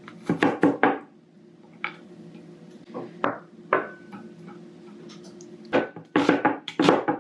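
Kitchen knife chopping garlic on a cutting board in uneven bursts: three quick strokes at the start, a few scattered strokes in the middle, then a fast run of chops near the end, over a steady low hum.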